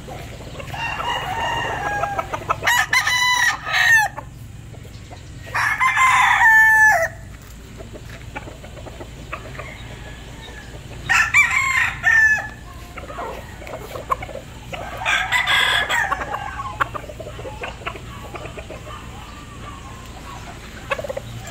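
Gamefowl roosters crowing in turn: about five crows, one to two seconds each, the pitch dropping at the end of each, with the loudest around three, six and eleven seconds in.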